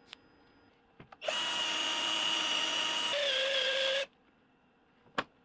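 A power tool or motor runs steadily for about three seconds, shifting to a different pitch partway through, then stops abruptly. A couple of light clicks come just before it starts.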